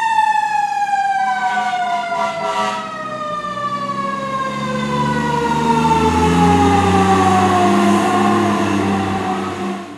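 Fire engine's mechanical siren winding down in one long, slowly falling wail, over the truck's diesel engine pulling away, which grows louder about halfway through.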